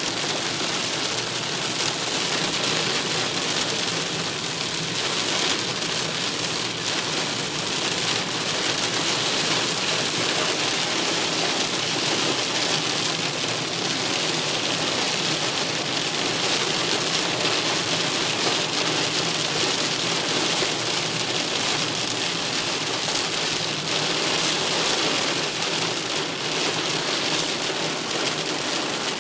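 Heavy rain on a moving car's windscreen and roof, heard from inside the car, with tyres running on the flooded road: a steady, dense hiss.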